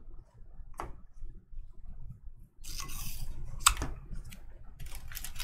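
Trading cards being handled and sorted: a sliding rustle and a few sharp clicks of card edges. Near the end comes the crinkling of opened foil pack wrappers.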